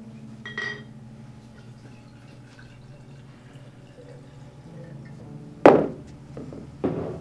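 A drink being poured at a bar: a glass clinks with a short ring near the start, liquid pours into the glass, then two sharp knocks, the louder first, as the glass and bottle are set down on the wooden bar top.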